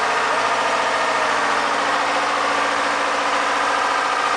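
Small fishing boat's engine running steadily while under way, with a steady rush of wind and water.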